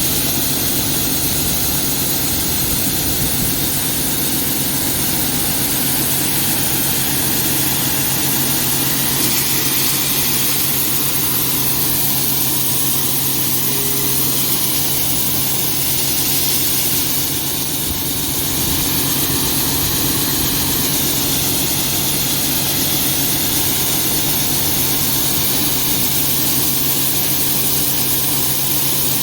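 Harvest machinery running steadily: an engine's constant low hum under a loud even hiss of machine noise, dipping briefly about two-thirds of the way through.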